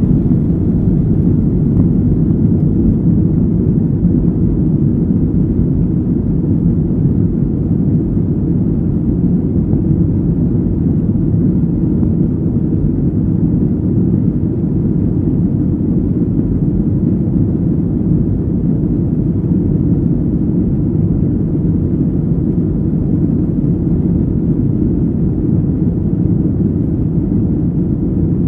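Boeing 737-900ER's CFM56-7B turbofan engines at take-off thrust, heard from inside the cabin as a steady low rumble with rushing air. It runs through lift-off and into the climb.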